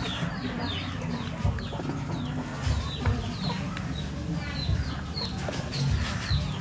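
Chicks peeping over and over, short falling chirps a few times a second, over a steady low rumble.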